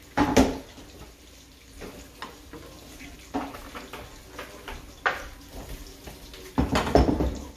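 Metal spoon and small frying pan knocking and clattering on a gas hob over a faint steady hiss: a loud knock at the start, a few lighter taps in the middle, and a longer clatter near the end.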